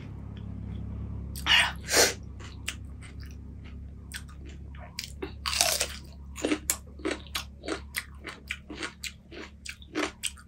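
Pani puri being bitten and chewed close to the microphone. Two loud crunches as the crisp puri shells break, about one and a half to two seconds in. Then steady crunchy chewing at about three or four chews a second through the second half.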